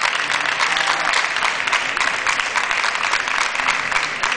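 Spectators applauding steadily: a dense, even clatter of many hands clapping.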